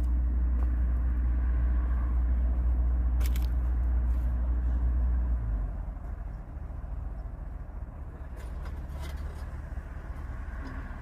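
A car engine running steadily at low revs, with a deep rumble that drops off noticeably about halfway through and carries on more quietly. There is a single sharp click about three seconds in.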